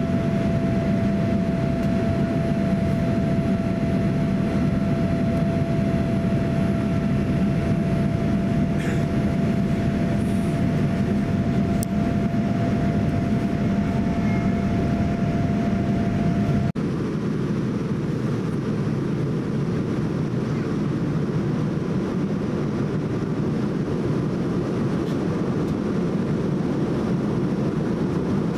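Steady cabin noise inside a Boeing 787-10 in its climb: the engines and rushing air make an even rumble, with a faint steady whine over it. A little over halfway through the sound steps down abruptly, the whine stops, and it runs on slightly quieter.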